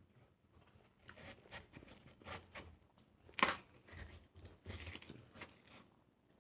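Biting and chewing small bits of watermelon flesh pulled off near the rind: a run of short, irregular crunches and clicks, one louder than the rest about three and a half seconds in.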